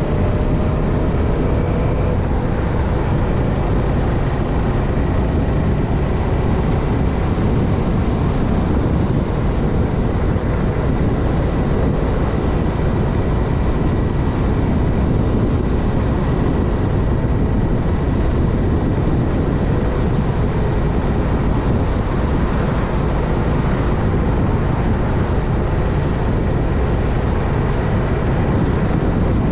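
Steady rush of wind and road noise on the microphone of a moving bike, with a faint steady high whine.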